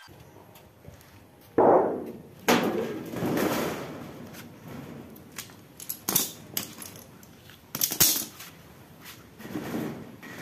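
Thin sheet-metal cabinet panel banging and flexing as it is pressed and patted into place by hand: a series of sharp bangs, the loudest about one and a half and two and a half seconds in, with more around six and eight seconds in.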